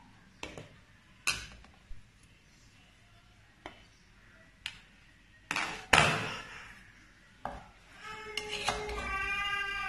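A glass pan lid and a metal slotted spoon clinking and knocking against a cooking pan as cooked biryani rice is lifted and turned, with a longer, louder scrape of the spoon through the rice about six seconds in. Background music comes in near the end.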